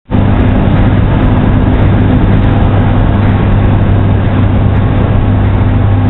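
Ladle turntable turning a 150-ton furnace ladle, heard in a loud, steady machinery drone with a strong low hum running through the noise of the smelter plant. It cuts in suddenly at the start.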